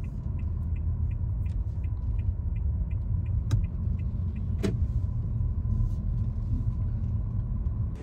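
Wind buffeting the microphone outdoors: a loud, fluttering low rumble. A faint, even ticking runs about three times a second through the first half, and two sharp clicks come about halfway.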